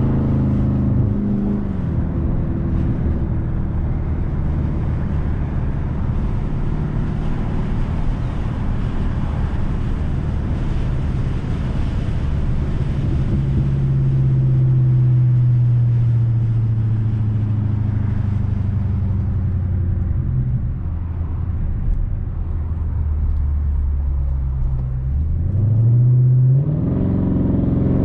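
Exhaust note of a 2020 Dodge Charger Scat Pack Widebody's 6.4-litre HEMI V8, with the mid mufflers deleted, while driving. The engine note drops about a second in, holds fairly steady and slowly sinks while cruising, then rises sharply under acceleration near the end.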